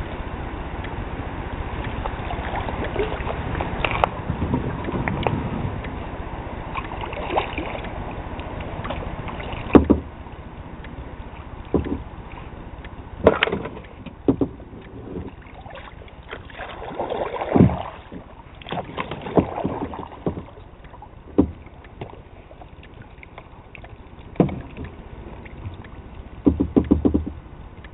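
Kayak paddle and hull knocking and scraping against floating logs, debris and weeds in a log jam: a steady noise for the first ten seconds, then a string of separate knocks and scrapes, with a rapid cluster of taps near the end.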